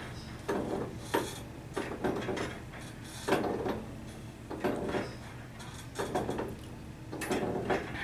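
Wooden porch swing creaking and knocking on its chains as it sways, a string of short creaks at irregular intervals.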